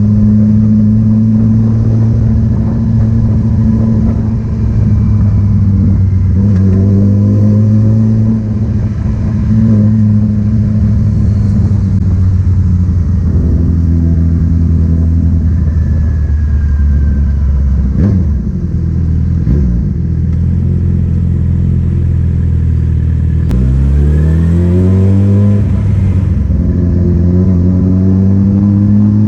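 Loud engine running steadily with small shifts in speed, then revving up sharply about 24 seconds in before settling at a steady higher note.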